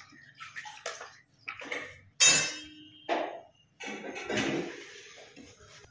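Kitchen utensils and dishes being handled: scattered clinks and knocks, with one sharp, loud clatter about two seconds in that rings briefly, then a stretch of scraping.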